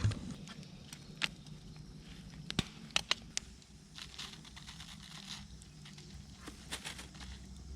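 Campfire crackling, with scattered sharp pops, the loudest few coming between about two and a half and three and a half seconds in.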